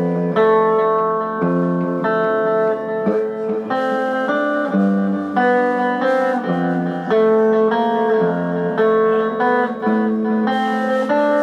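Electric guitar played with a clean tone: a run of picked notes and chords, changing every second or so.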